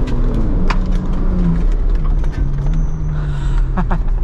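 Ford Bronco Raptor's 3.0 L twin-turbo V6 pulling steadily under way on a gravel track, heard from inside the cabin over a constant low rumble of tyres and suspension. A few sharp clicks cut through, the first right at the start and two more within about the first second and a half.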